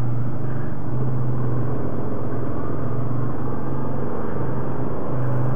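ATV engine running steadily under way, a constant low drone with the ride's noise over it.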